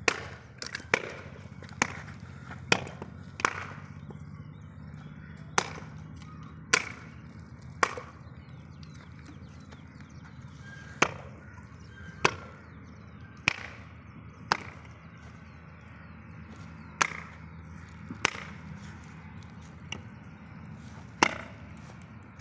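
Sharp, hard knocks of husked coconuts hung against a concrete wall being struck by hand to crack them open: about seventeen blows at irregular gaps of one to three seconds.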